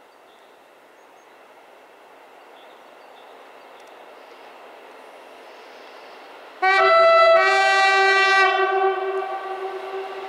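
MRD4215/MR4015 diesel multiple unit approaching, its running noise slowly growing louder. About six and a half seconds in it sounds its horn: a short blast, then a longer blast of about a second that fades away.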